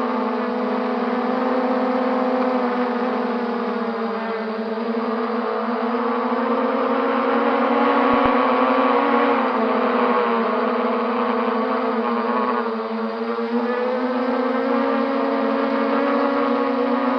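Quadcopter's electric motors and propellers buzzing steadily, the pitch wavering up and down a little with throttle.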